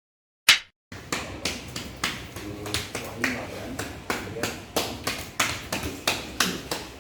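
A single sharp click, then a steady run of sharp knocks, about three a second and slightly uneven.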